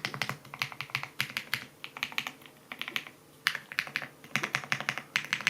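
Typing on a mechanical keyboard with pre-lubed linear switches (XVX medium purple) and double-shot PBT cherry-profile keycaps. It comes as rapid runs of keystrokes, with a short pause about three seconds in.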